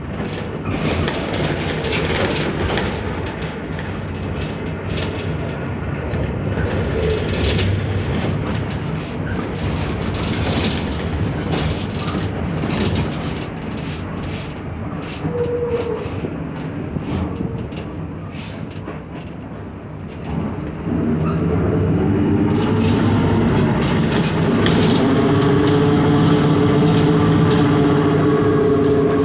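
Mercedes-Benz OF-1721 city bus under way, its body rattling and clicking over the road. About twenty seconds in it pulls harder and gets louder, with a rising growl from the differential.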